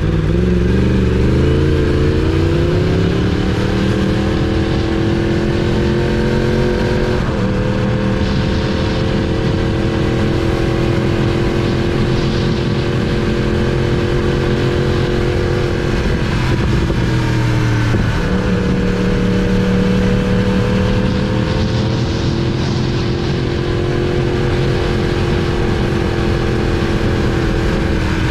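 2019 Yamaha R1's crossplane inline-four engine under way, rising in pitch over the first few seconds and then holding a steady note, with short breaks in the note about seven seconds in and again around seventeen seconds, under the rush of wind at road speed.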